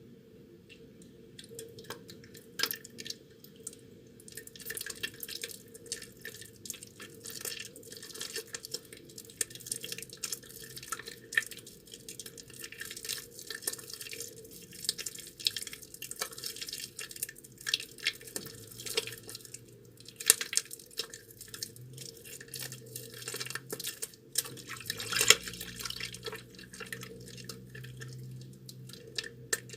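Soaked, mushy bar soap being squeezed and rubbed between wet hands to lather it. It makes a dense run of irregular wet clicks and crackles, with a few louder squelches.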